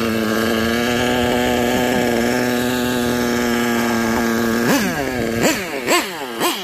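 Losi 8IGHT nitro buggy's small two-stroke glow engine idling steadily, then revved in quick sharp blips, about five in the last two seconds.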